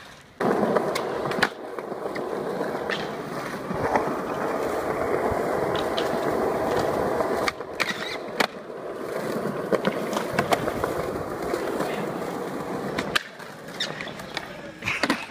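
Skateboard wheels rolling steadily over smooth stone paving, broken by sharp clacks and knocks of tail pops and landings. About halfway through, the board scrapes along a stone ledge.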